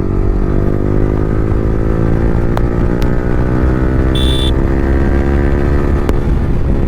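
Yamaha R15 V3's single-cylinder engine running loud through an Akrapovic R9 exhaust with the dB killer removed, its pitch rising slowly as the bike pulls through a gear, then holding. A short high beep cuts in about four seconds in.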